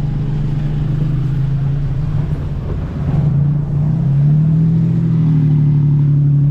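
Tuk-tuk engine running under way with a steady hum, its pitch rising as it speeds up about four seconds in.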